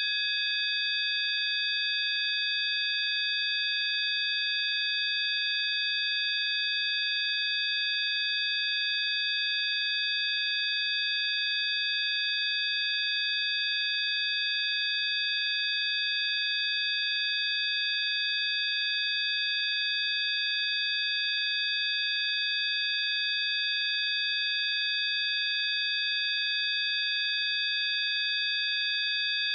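Synthesized 'healing frequency' tones: several steady high-pitched pure sine tones sounding together, held without any change.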